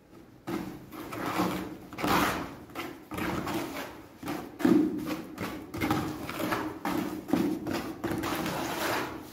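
Wet cement-and-sand mortar being mixed by hand in a bucket with a trowel: irregular scraping and slopping strokes, a few a second, as the trowel drags through the mortar and against the bucket.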